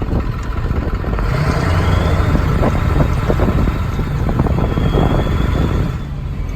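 Vehicle driving on a freshly graded dirt road: a steady engine and road rumble, with a run of small clicks and knocks through the middle.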